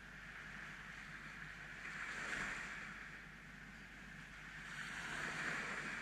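Small sea waves breaking and washing up a sandy beach, the surf swelling twice about three seconds apart.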